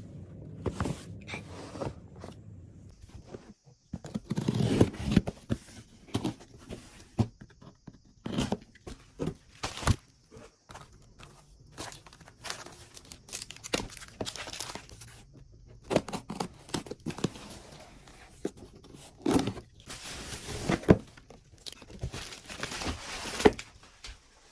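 Packaging being opened by hand: plastic wrap and paper tearing and crinkling, with many small clicks and rustles as items are handled.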